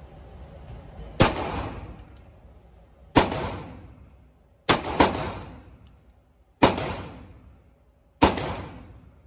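Handgun fired six times in an indoor range lane: single shots spaced one to two seconds apart, with two in quick succession about halfway through. Each shot trails off in the reverberation of the lane.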